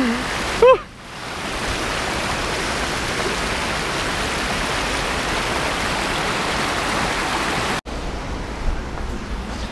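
Shallow river water rushing over a low concrete weir and around stepping stones, heard as a steady hiss. A brief voice sounds in the first second, and the rushing cuts off abruptly about eight seconds in, leaving a quieter hiss.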